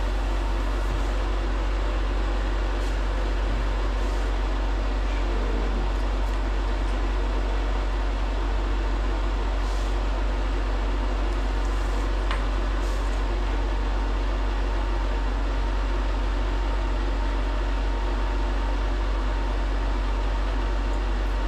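An electric fan running steadily: a constant low hum that does not change, with a couple of faint clicks partway through.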